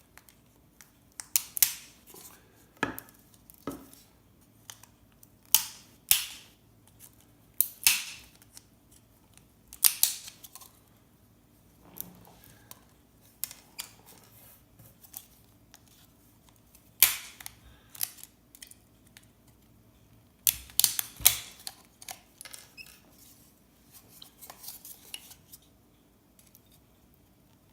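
Hand cutters snipping small gold-plated parts off old mobile-phone circuit boards: sharp, irregular clicks a second or two apart, with a pause in the middle.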